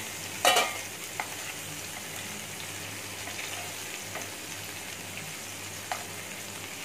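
Marinated chicken pieces sizzling steadily in hot oil in a nonstick frying pan, with a sharp clatter about half a second in and a few light taps of a steel spatula on the pan as the pieces are turned.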